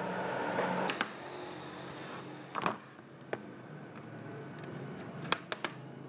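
A metal pry tool scraping along the seam of an HP 14 laptop's plastic bottom case, then sharp clicks as the case's retaining clips snap loose: one about a second in, another in the middle, and three in quick succession near the end.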